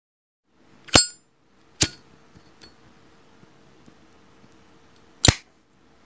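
Metallic clicks of a Zippo lighter's hinged lid. There is a sharp clink with a brief bright ring about a second in, a smaller click just after, and a loud snap near the end.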